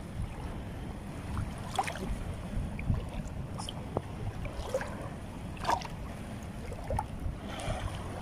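Feet wading through shallow seawater, with a short splash about once a second, over a low rumble of wind on the microphone.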